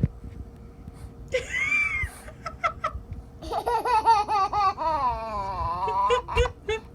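High-pitched laughter in a quick pulsing run of about two and a half seconds, starting about three and a half seconds in. A short squeal rises and falls about a second and a half in.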